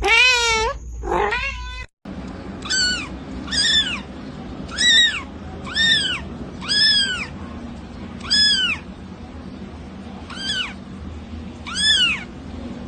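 A cream-coloured cat gives one wavering meow and then a short second one. After a cut, a fluffy grey tabby kitten mews over and over, about eight high-pitched calls, each rising and then falling in pitch, roughly one a second.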